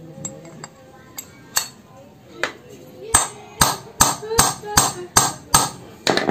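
Hammer and drift driving a worn, loose valve guide out of a Honda Vario 125 cylinder head. A few light taps come first, then about eight sharp metal blows in a steady rhythm, roughly two to three a second.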